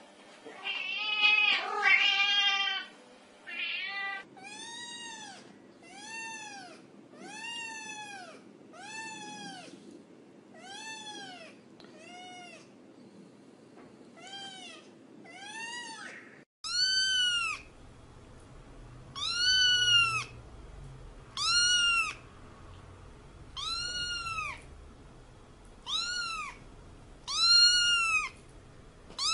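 A cat meowing over and over. It opens with two longer, wavering meows, then gives a run of short, fainter meows about once a second. About halfway the sound changes suddenly to louder meows every couple of seconds.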